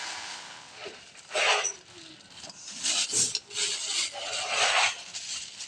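A few separate short rasping scrapes from hand-tool work, with pauses between them.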